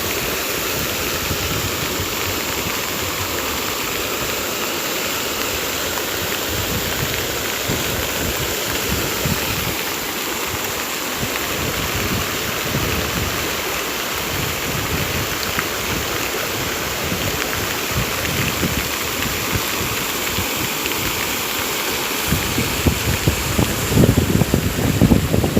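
Aie River floodwater flowing steadily. Wind buffets the microphone in low gusts near the end.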